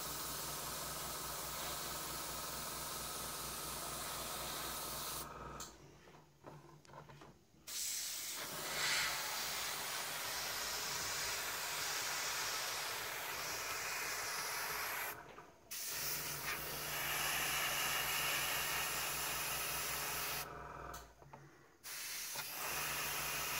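Airbrush hissing as it sprays thinned acrylic paint, over the steady hum of the air compressor feeding it. The sound drops out briefly three times.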